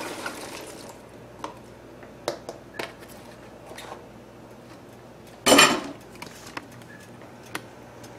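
Chopped cabbage being tipped and shaken out of a plastic container into a stainless steel pot: scattered light taps and clicks, with one louder clatter about five and a half seconds in.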